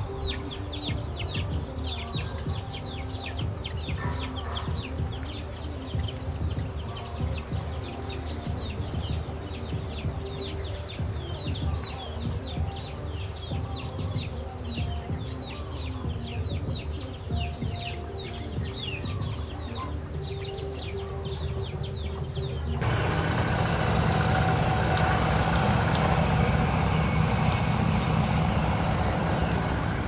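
Nestlings in a grass nest giving a rapid stream of short, high, down-slurred begging chirps over a low rumble. About two-thirds of the way through, the chirping stops and a louder, even rushing noise takes over.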